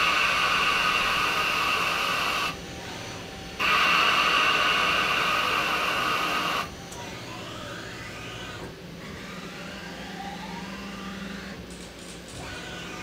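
Metal bar spinning in the spindle of a Tormach CNC mill used as a lathe while a fixed turning tool cuts it: loud steady cutting noise in two passes of about three seconds each, with a break of about a second between them. After that, a quieter machine hum with faint tones that glide up and down.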